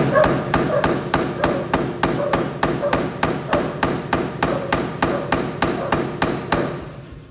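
Anyang power hammer with flat dies striking a white-hot stainless-clad San Mai billet in a rapid, even rhythm of about five blows a second, setting the forge weld between the cladding and the high-carbon core. The blows stop near the end.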